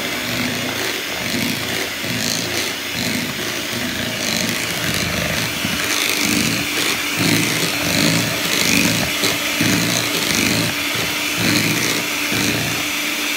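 Electric hand mixer running, its beaters churning through cooked sweet potato mash in a ceramic bowl: a steady motor hum under an uneven churning noise. The beating is done to draw the stringy fibres out of the potatoes onto the beaters.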